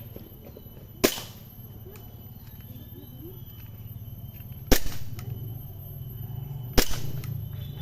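Airsoft gun fired three single shots, each a sharp crack, irregularly spaced about a second in, near the middle and near the end, over a steady low hum.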